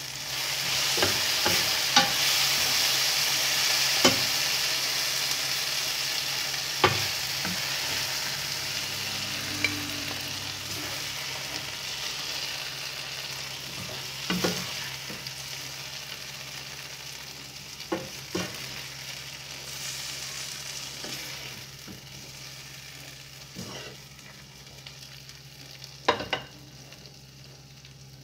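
Eggplant, onion and red bell pepper frying in oyster sauce in a pan, sizzling while a spatula stirs and scoops them, with sharp clicks of the spatula against the pan every few seconds. The sizzle gradually dies down as the food is lifted out onto a plate.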